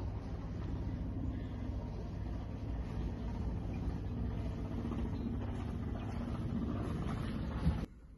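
Sailboat's inboard Yanmar diesel engine idling with a steady low rumble, cutting off abruptly near the end.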